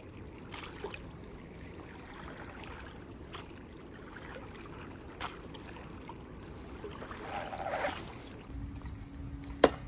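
Waterside ambience of water lapping, with scattered small clicks. A steady low hum comes in about eight and a half seconds in, and a single sharp knock sounds just before the end.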